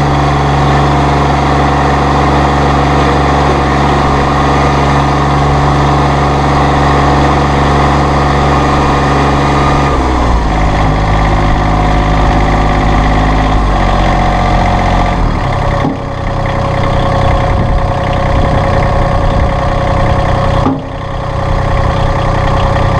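Massey Ferguson GC1720 sub-compact tractor's diesel engine running at a raised throttle. The engine note dips and recovers several times, about ten seconds in, around 14 and 16 seconds, and again near the end, as the loader hydraulics are cycled and load the engine.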